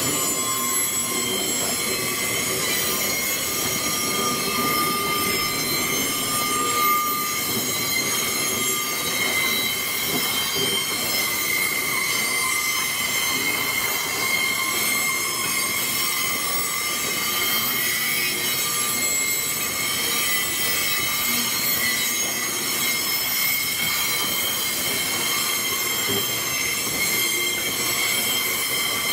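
Loaded narrow-gauge gypsum hopper wagons rolling past with a steady, high-pitched metallic squeal of several tones from the wheels, over a continuous rolling rumble.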